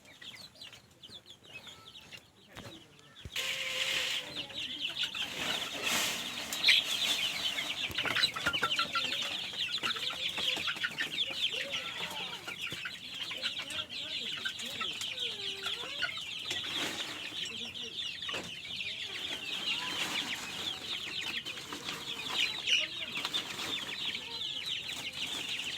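A shed of young local chickens, about 45 days old, cheeping and clucking as a flock: a dense, continuous high chatter with some lower calls mixed in, growing much louder about three seconds in.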